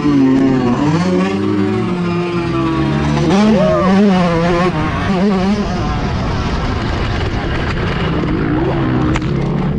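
Motocross dirt bike engine revving up and down on the throttle, its pitch rising and falling several times, then running steadier from about six seconds in.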